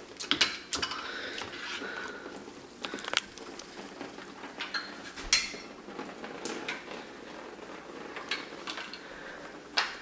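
Scattered clinks and knocks of dishes and the dishwasher's wire rack as a just-washed Apple aluminium keyboard is pulled out and handled, the loudest knock about five seconds in.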